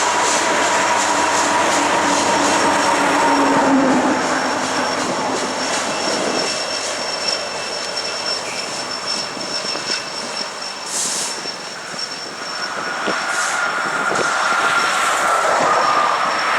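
A Union Pacific coal train rolling past on a curve: a steady rumble of wheels on rail, with thin, steady wheel squeals held over it, one high squeal through the middle and another starting near the end.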